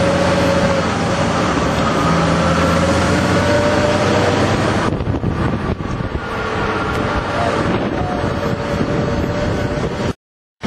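Engine of a WWII-era truck running steadily as it drives along, heard from inside the cab, with wind noise. The sound cuts out for about half a second near the end.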